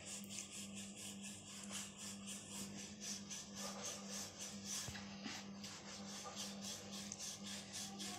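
Rolling pin rolling out a stuffed paratha on a flour-dusted round rolling board: soft, quick back-and-forth rubbing strokes, repeated evenly.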